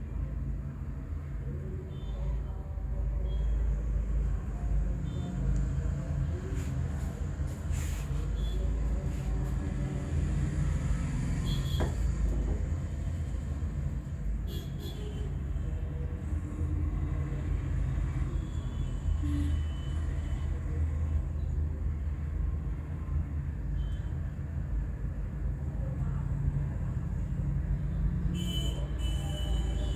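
Steady low rumble of passing vehicle traffic, with a few sharp clicks and short high tones near the end.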